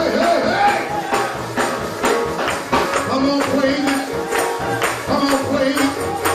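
Gospel praise music: voices singing over a steady beat of about two strikes a second, with tambourine.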